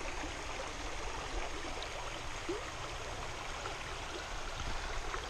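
Shallow stream running over rocks, a steady rush of water.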